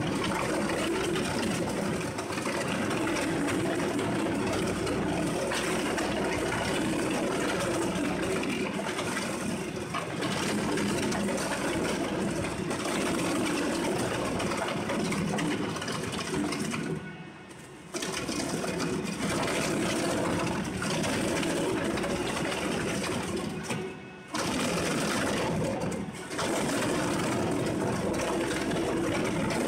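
ZEDA-PN5000 twin-shaft document shredder running under load, its rotating cutter discs continuously grinding and tearing through bundled paper files and notebooks. The noise briefly drops away twice, a little past halfway and about four-fifths through.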